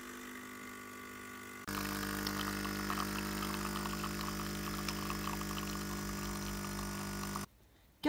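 De'Longhi pump espresso machine brewing, its vibration pump buzzing with a steady hum as espresso pours. The hum steps up louder about two seconds in and cuts off abruptly near the end.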